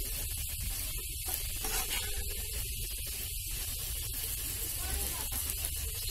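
Small whole red potatoes with onion frying in oil in a nonstick pan, sizzling with a steady hiss as they are stirred with a metal spatula.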